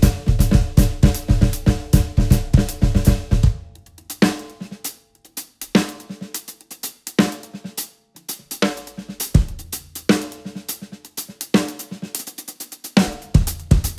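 Drum kit with Meinl cymbals played solo: a fast dense run of snare, tom and kick-drum strokes with the toms ringing, breaking after about three and a half seconds into sparse, spaced accents with gaps between, then a dense flurry again near the end.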